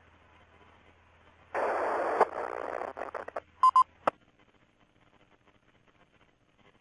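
FM repeater heard through a ham radio receiver: faint hiss and hum, then a loud burst of noise about a second and a half in, two short beeps, and a click as the carrier drops and the hum stops, leaving faint hiss.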